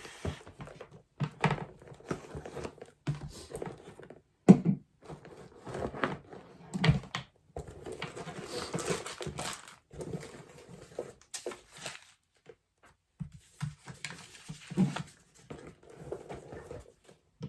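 A handbag and the things in it being handled: irregular knocks, clicks and rustling as items are moved about and taken out.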